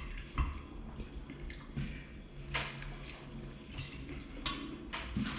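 Metal fork clinking and scraping against a ceramic dinner plate as food is picked up, several separate clicks spread through.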